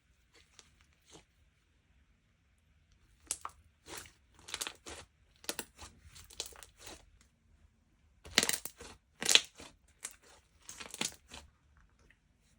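Hands squishing and stretching a soft, creamy slime: irregular bursts of sticky crackling, loudest about eight to nine and a half seconds in.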